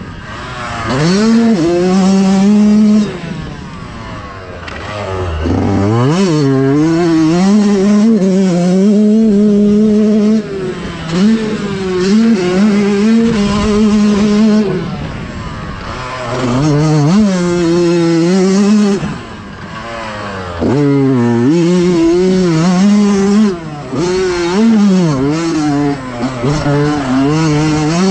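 Yamaha YZ125X's 125cc two-stroke single-cylinder engine revving hard and falling off again several times as the dirt bike is ridden through bermed turns, the throttle opened out of each corner and chopped going into the next. The pitch climbs steeply about a second in, again around six seconds in, and several more times later on, with short drops in between.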